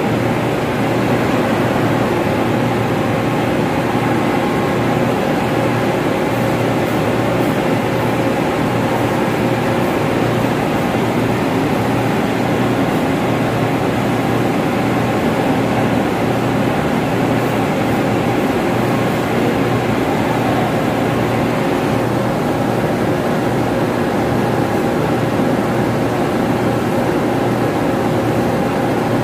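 Steady, loud drone of running ventilation machinery: fans and air-handling equipment in a plant room, a constant hum with a few steady tones over a broad rushing noise.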